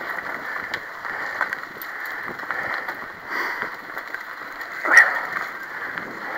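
Mountain bike riding over a dirt forest singletrack: steady tyre and trail rumble with small rattles and clicks, and one sharp knock about five seconds in.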